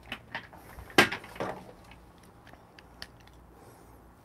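A few knocks and clicks from the camera being picked up and moved, with the sharpest knock about a second in.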